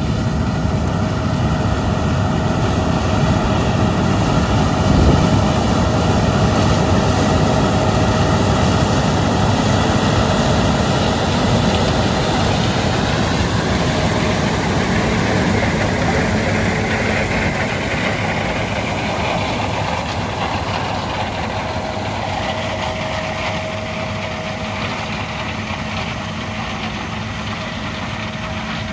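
Heavy diesel farm machinery running steadily under load, with mechanical rattle, slowly getting quieter over the second half.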